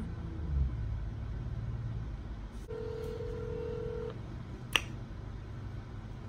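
Phone ringback tone from a smartphone on speakerphone: one steady ring lasting a little over a second, starting a little under halfway in, as an outgoing call rings unanswered. A single sharp click about three quarters of the way in.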